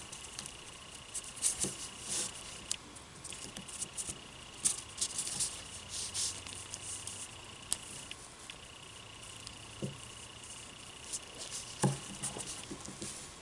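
Small plastic clicks, taps and scrapes as hands handle a Hasbro Lightning Collection SPD Red Ranger action figure, fitting its toy blaster into the hip holster. The clicks are scattered and irregular through the whole stretch.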